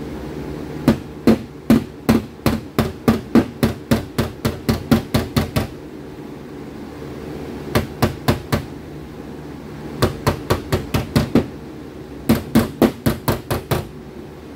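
Hammer tapping on the Ford Edge's sheet-metal body panel in quick runs of strikes, about four a second, with short pauses between runs, over a steady hum: a dent being tapped back into shape.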